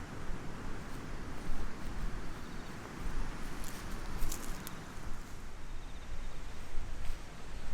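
Strong wind buffeting the microphone in gusts, a low rumble that swells and drops, with a few small rustles and clicks.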